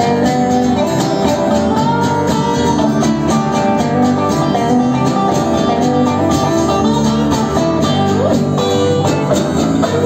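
Live band playing an instrumental passage of a rock song. An acoustic guitar is strummed steadily under electric guitar lines, with no singing.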